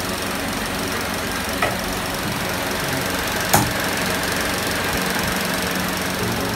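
A steady machine hum with hiss, broken by two short sharp clicks about two seconds apart.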